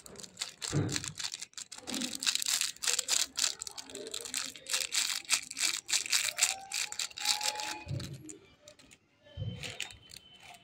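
Maggi masala sachets crinkling and tearing as they are opened and shaken out over a pan of water, a dense run of crackles for several seconds, with a couple of dull knocks near the end.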